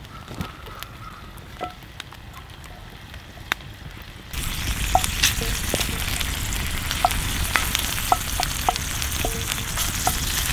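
Chunks of bear fat sizzling and popping in a cast iron skillet over a campfire as they render into cooking fat, stirred with a wooden stick. The sizzling starts suddenly about four seconds in; before that there are only a few faint campfire crackles.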